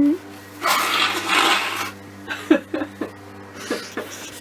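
A woman blowing her nose hard, a noisy blast of a little over a second with two surges, followed by a few small clicks and rustles.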